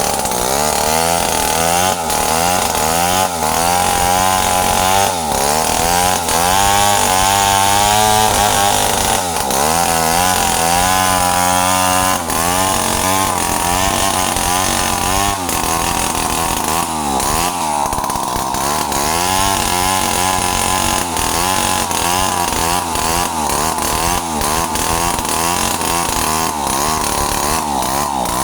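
Stihl two-stroke chainsaw running at high revs, its engine pitch rising and falling continually as it cuts wood.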